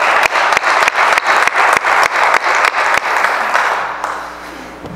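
Audience applauding in a room, with one person's hand claps close to the microphone standing out about three times a second. The applause dies away about four seconds in.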